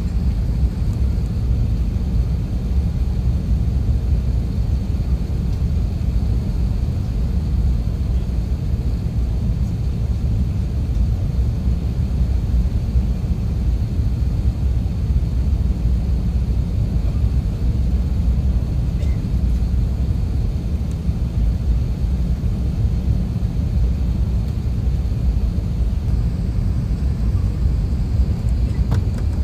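Steady low rumble of an Airbus A380 airliner's engines and airflow, heard inside the cabin from a seat over the wing as the plane descends on approach.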